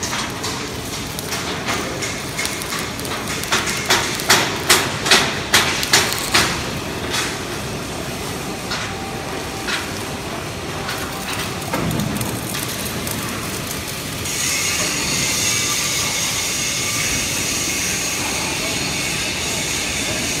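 Steel fabrication shop noise: a quick run of about eight hammer blows on steel between four and six seconds in, with scattered knocks after. About two-thirds through, a steady high hiss sets in and continues.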